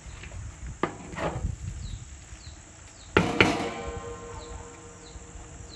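Noodles being stirred and tossed in a large aluminium kadai, with a few light knocks early and, about three seconds in, a loud strike of the metal spatula on the pan that leaves it ringing for more than a second.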